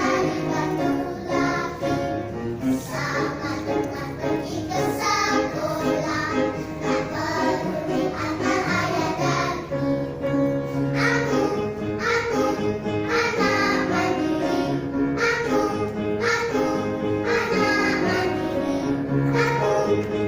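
Kindergarten children's choir singing together with instrumental accompaniment.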